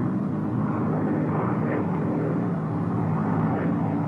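Steady drone of a Lockheed P-38 Lightning's Allison V-12 piston engine in flight, one engine running alone with the right engine shut down and its propeller feathered.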